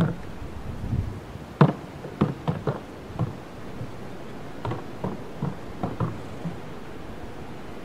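A horse's hooves knocking on the boards of a hollow wooden bridge platform as it steps on and walks along it. A run of sharp knocks comes about one and a half to three and a half seconds in, then another irregular run of lighter knocks from about four and a half to six and a half seconds.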